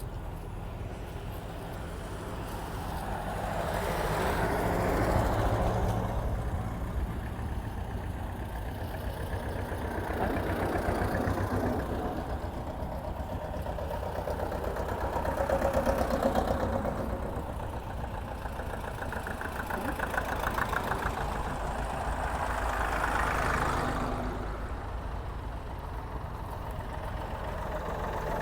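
Road traffic passing one vehicle at a time on a rain-wet road, each one's engine and tyre hiss swelling and fading over a couple of seconds, about five times, over a steady low rumble.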